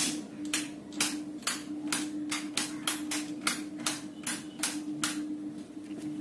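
Short, sharp hissing percussion strokes in a steady rhythm, about two a second with some doubled, over a steady low hum.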